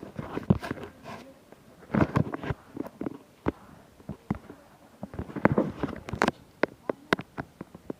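Handling noises: a run of sharp clicks and knocks with bursts of rustling, bunched about half a second in, around two seconds in, and again around five to six seconds in.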